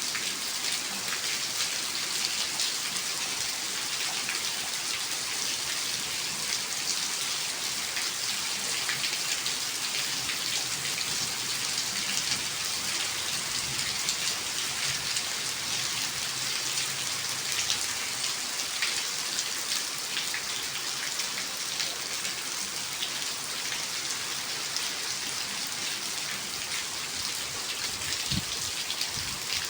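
Steady rain falling: an even hiss of rainfall with many small drop ticks throughout.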